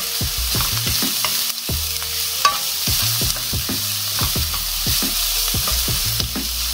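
Chopped onion and carrot sizzling in hot oil in a nonstick wok as they soften, stirred with a wooden spatula that knocks and scrapes against the pan many times.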